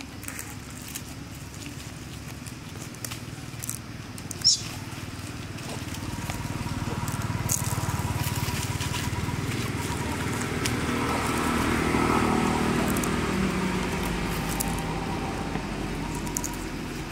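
Dry leaf litter crackling as macaques move and handle leaves, with one sharp, high, short squeal about four and a half seconds in. From about six seconds a low, steady motor hum swells to its loudest around twelve seconds and then eases off.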